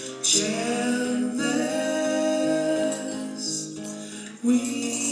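A band playing live, with a sung vocal line over instrumental accompaniment. One long held sung note, then a new phrase begins near the end.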